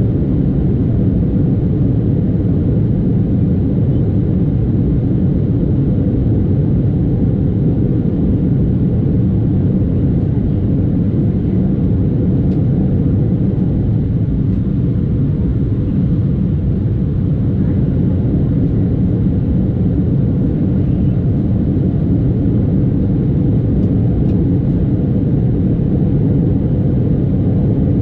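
Steady low rumble inside the cabin of an Embraer 175 jetliner in the climb after takeoff: its General Electric CF34-8E turbofan engines and the rush of air over the fuselage, heard from a window seat over the wing.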